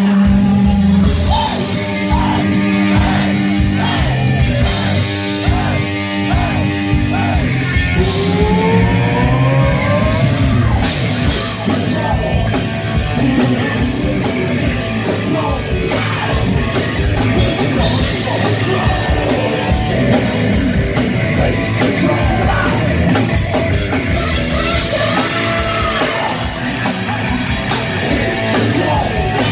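Heavy metal band playing live and loud: distorted electric guitar, bass and drum kit, with a rising pitch slide about eight seconds in.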